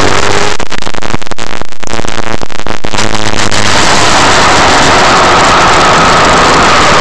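Motorcycle engine running under wind rush, recorded by an onboard camera, loud and distorted throughout. For about three seconds near the start the sound turns to an even pulsing, then the steady engine note returns.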